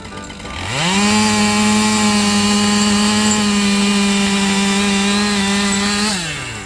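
Two-stroke chainsaw revved from idle up to full throttle about half a second in, held at a steady high pitch for about five seconds, then let off back toward idle near the end.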